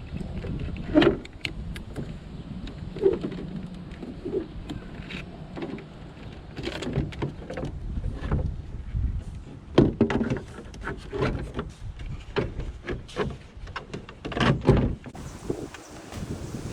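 Irregular clicks, knocks and rattles of hands working on a car tail light assembly, with a few sharper knocks standing out.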